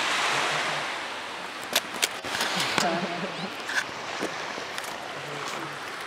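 Gentle surf washing on a sandy beach, a steady hiss that is loudest in the first second and then eases off, with a few sharp clicks and faint distant voices.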